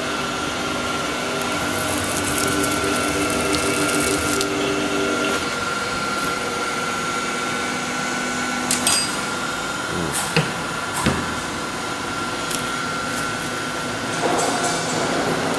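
Cling film edge trimming machine running with a steady motor hum and a high hiss, which stops about five seconds in. After that come a few knocks and clunks as the film roll is handled and taken off the shaft, over a faint steady whine.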